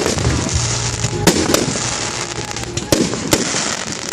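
Fireworks display: shells bursting in several sharp bangs, two about a second in and two more near the end, over a continuous crackling hiss.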